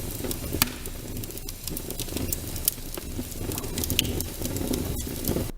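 Recording of fine lung crackles: many short, sharp, irregular pops over the low sound of breathing, cutting off suddenly near the end. Fine crackles are the sign of fluid in the alveoli or small airways, which snap open as air moves in and out.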